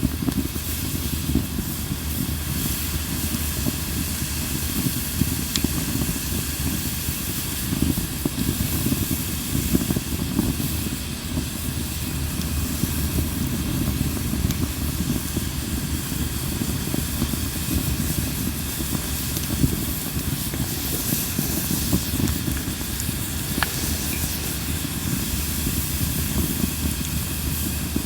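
Linden (basswood) campfire burning with a steady hissing rush, broken by a few sharp crackles.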